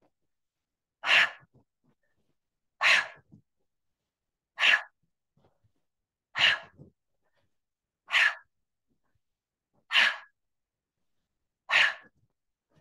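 A woman's forceful breaths out through the mouth, seven in a row about every two seconds, each a short rushing blast: the clearing exhalations of a qigong exercise, timed with the arm movements.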